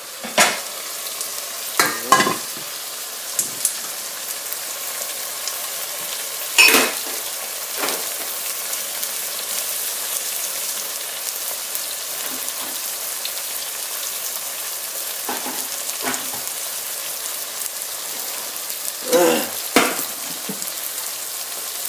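Chicken curry sizzling steadily in a pan over a turned-up gas flame, with a spoon now and then scraping and knocking against the pan as it is stirred.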